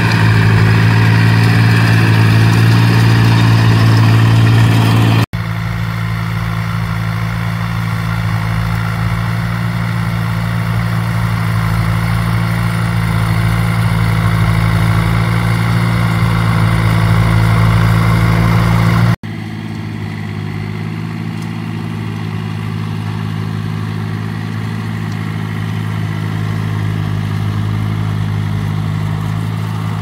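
Engine of a farm machine running steadily, with two abrupt breaks where the sound drops and resumes at a slightly different level and tone.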